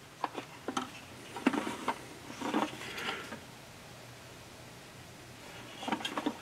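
Handling noises of an O-scale model reefer car being turned over in the hands: scattered light clicks and brief rustles during the first three seconds and again near the end.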